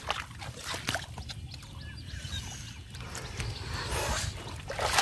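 Muddy water splashing and sloshing as hands dig through a shallow, weed-choked pool, getting louder near the end as a large catfish is hauled out of the water.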